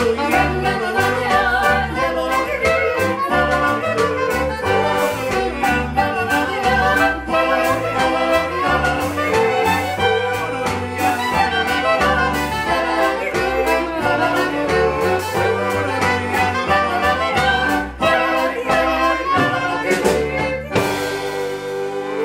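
Small acoustic band playing live: clarinet, double bass, violin, drum kit and accordion together over a steady drum beat, ending on a held chord near the end.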